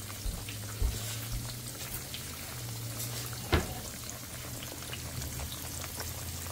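Breaded pork schnitzels frying in very hot canola oil in a pan: a steady sizzle with scattered small crackles and pops, over a low steady hum. A single sharp knock comes about three and a half seconds in.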